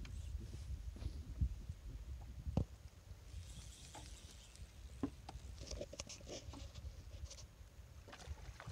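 Low, uneven rumbling thumps of wind buffeting the microphone, with a brief hiss and a run of faint quick clicks in the middle.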